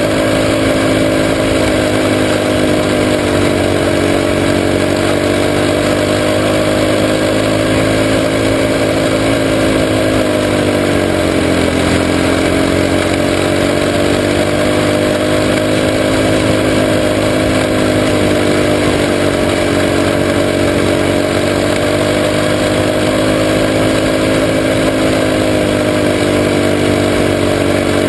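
Junior sprint car's engine running hard at racing speed, heard from onboard the car. Its pitch dips and climbs back again several times as it slows and accelerates around the laps, deepest about twelve seconds in, over a steady rushing noise.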